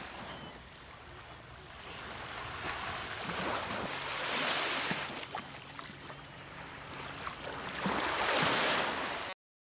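Small waves washing onto a sandy beach, swelling louder twice, with wind on the microphone; the sound stops abruptly near the end.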